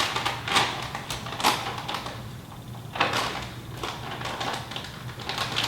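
Kitchen handling noise: a few separate sharp knocks and clatters, about five in all, as containers and utensils are moved and set down.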